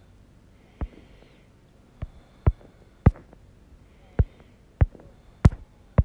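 Stylus tapping on a tablet's glass screen: a series of sharp, short clicks at irregular intervals, roughly one a second.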